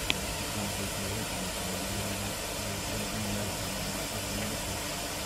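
Narrow-gauge steam tank locomotive Southern E762 'Lyn' standing with steam up: a steady hiss of steam with a faint low hum underneath, and a single click just after the start.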